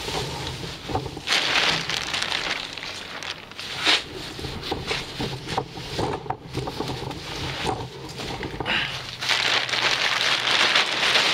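Black plastic trash bag rustling and crinkling as it is handled and folded, in irregular bursts that are densest near the end.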